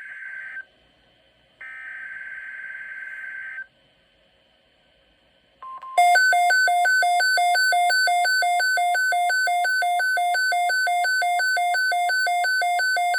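NOAA Weather Radio alert received on a Midland WR120B weather radio. Two bursts of screechy digital SAME header data come first, then a pause and a brief steady warning tone. About six seconds in, the radio's own loud alarm starts: two beep pitches alternating rapidly and evenly, announcing a severe thunderstorm watch.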